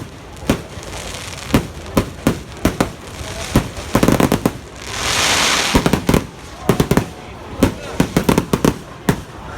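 Fireworks display: a steady run of sharp bangs from bursting shells, thickening into a rapid cluster about four seconds in. About a second of loud hissing crackle follows, and then more scattered bangs.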